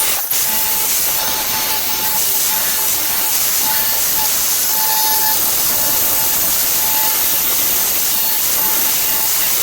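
A power tool cutting porcelain paving, running steadily with a loud hissing grind.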